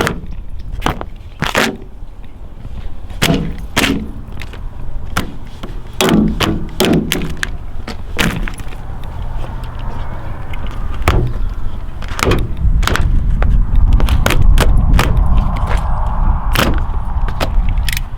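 Tape being cut and torn off a wrecked truck's body: a run of sharp cracks and snaps, with a longer tearing hiss in the second half, over a low steady rumble.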